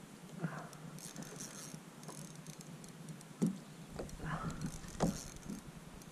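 Small waves slapping against a kayak hull, with scattered knocks; the two strongest knocks come about three and a half and five seconds in.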